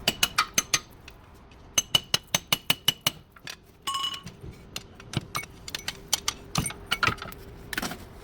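Metal tools tapping and clinking on metal parts, in quick runs of about four to five sharp strikes a second, some with a short ringing note, then scattered single clinks.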